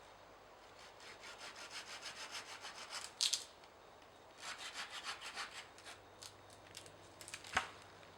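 Hand saw cutting wood with quick back-and-forth strokes in two runs. A couple of louder scrapes sit between the runs, and a single sharp crack of wood comes near the end.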